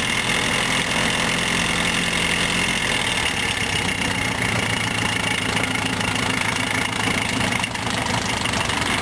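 Isuzu Bellett GT type R's twin-cam four-cylinder engine idling steadily, with a fast, even clatter running through the sound. It is the kind of noise that raises the question of an abnormal engine noise.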